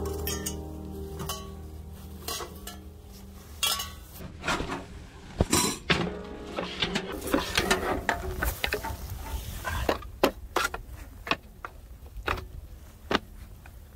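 Cookware and utensils clinking and knocking: a quick, uneven run of sharp clicks and clatters that starts about four seconds in, is busiest in the middle and thins out near the end.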